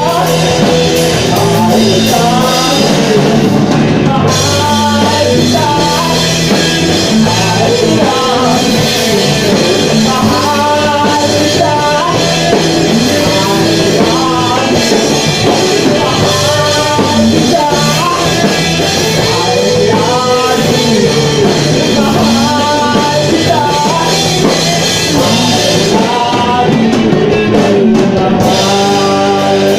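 A live band playing a rock song on drum kit and guitar, with a lead melody line in phrases of a second or two over it.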